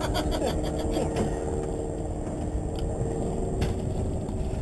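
A fishing boat's engine running steadily, a constant low hum with a steady drone. A few short clicks sound in the first second and once more later.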